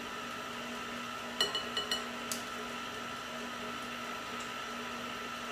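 Small measuring spoon clinking a few times against the rim of a baking powder container, in a quick cluster of ringing taps about a second and a half in, with one more tap just after. A steady hum runs underneath.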